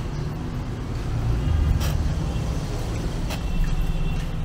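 City street traffic: the low rumble of passing motor vehicles, swelling about a second and a half in, with a couple of sharp clicks.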